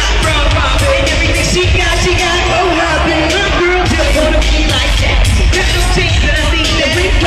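Live pop music played loud through an arena sound system: a band with a steady beat and a lead vocal, heard from among the audience.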